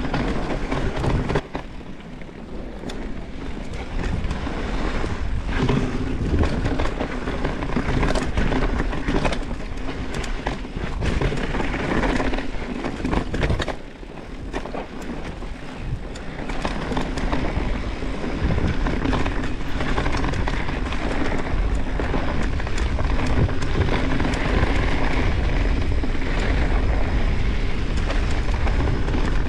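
Wind rushing over the microphone of a mountain bike moving fast down a dirt trail, with the tyres rolling on dirt and the bike rattling with many small knocks; it eases briefly twice, about 1.5 s and 14 s in.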